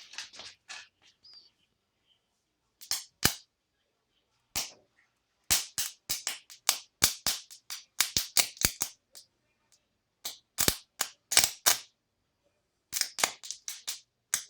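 Sharp electrical snaps and crackles in irregular bursts, as the low-voltage output leads of a homemade toroidal transformer are touched together and shorted: a crude current test made without an ammeter.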